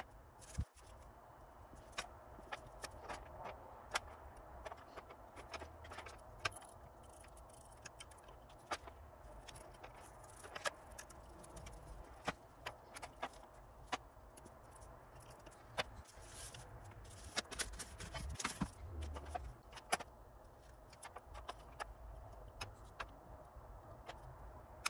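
Hobby-knife blade scraping blistered paint from the back of a glass amplifier front panel: faint, irregular ticks and short scratches of metal on glass, with denser runs of scraping now and then.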